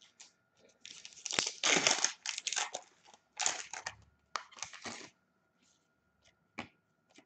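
Hockey card pack wrapper being torn open and crinkled in the hands, a dense rustle lasting about four seconds. A few sharp clicks of cards being flicked follow near the end.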